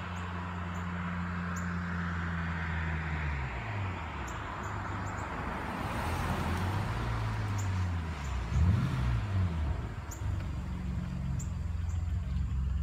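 1986 BMW 535i (E28) straight-six exhaust through a Supersprint muffler with the resonator deleted, as the car drives up: a steady running note that drops about four seconds in as it lets off, a short rev up and down around nine seconds in, then a steady low note as it turns.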